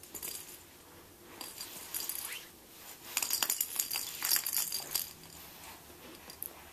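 A baby's rattle ball toy jingling and clinking in short, irregular spells as the baby grabs and moves it, busiest in the middle.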